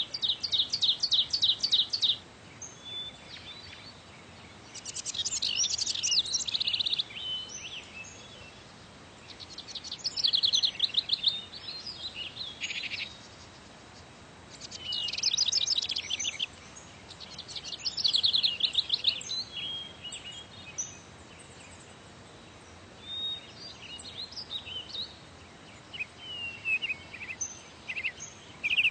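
Songbirds singing: five or six bursts of rapid trilled notes, each about two seconds long, with scattered single chirps between them over a faint steady hiss.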